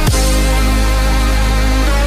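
Electronic dance music with heavy sustained bass and a downward pitch sweep right at the start, in a dubstep style.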